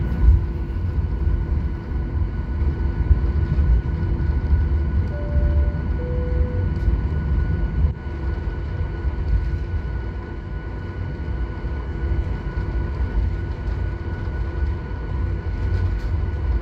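Cabin noise of a Boeing 737 taxiing: its jet engines running at idle, a steady whine over a low rumble. About five seconds in, a two-note cabin chime sounds, the second note lower.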